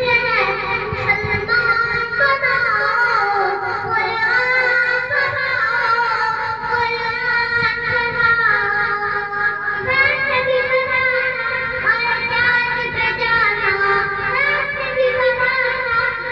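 A young boy singing an Islamic devotional song into a handheld microphone, his voice carried through an amplifier, in a melodic line of long, wavering held notes.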